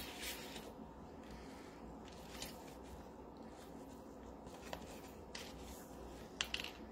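Faint handling of paper and plastic packaging on a craft table: soft rustles and a few light clicks or taps scattered through, over a low steady room background.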